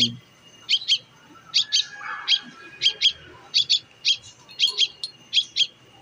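A fledgling songbird calling with short, high double chirps, repeated about once a second.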